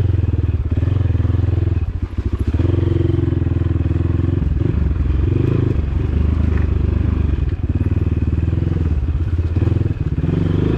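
Dirt bike engine running while riding on a rough, muddy track, its note dipping briefly a few times, about two seconds in and twice more later on.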